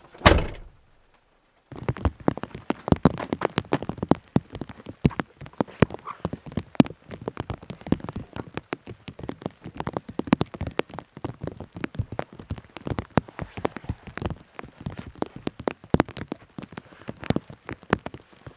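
A single heavy thunk, then, after a short break, rain falling, a dense irregular patter of drops striking a surface.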